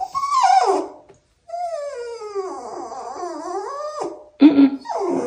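A small, over-excited dog whining and grumbling: a long wavering whine of a couple of seconds, then short louder vocal bursts near the end. The dog is complaining in frustration, too wound up and impatient to go out.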